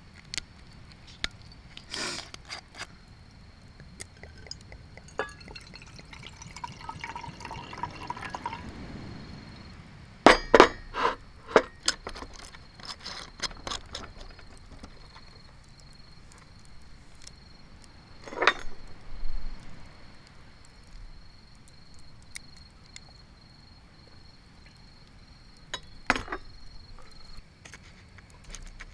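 Local sake poured into a glass over a few seconds, followed by a run of sharp glass clinks and knocks and a couple of single clinks later on.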